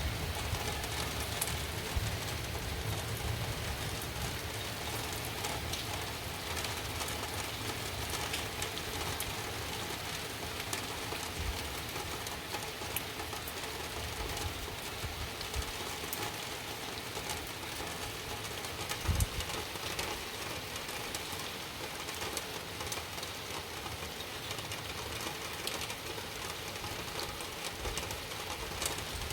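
Steady rain falling during a thunderstorm, with fine patter of drops. A low rumble dies away in the first few seconds, and a single soft low thump comes about two-thirds of the way through.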